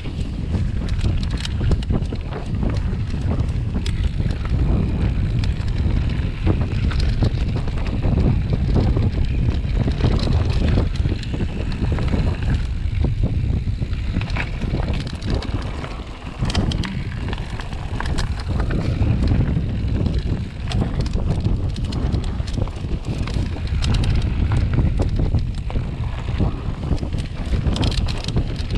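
Heavy wind rumble on the microphone, with frequent short clicks and rattles scattered through it.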